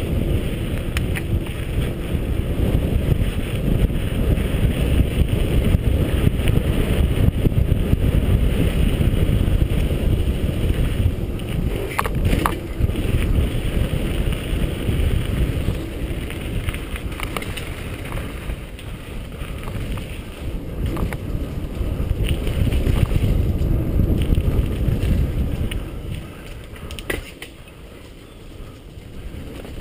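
Wind buffeting a GoPro's microphone over the rumble of mountain bike tyres rolling along a dirt singletrack, with a few sharp clicks and knocks from the bike over bumps. It grows quieter near the end as the bike slows into the leaf-covered woods.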